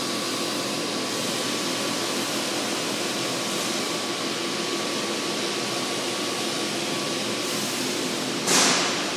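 Steady rushing background noise of a metal fabrication shop, with one short, sharp hiss about eight and a half seconds in.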